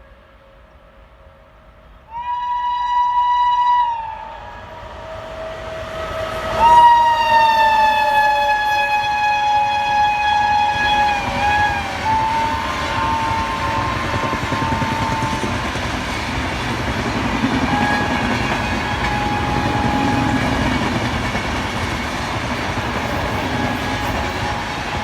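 Shrill horn of an Indian Railways WAP-7 electric locomotive, sounded twice: a blast of about two seconds a couple of seconds in, then a longer blast of about five seconds that sags slightly in pitch near its end. After it, the passing train rumbles and its wheels clatter over the rail joints.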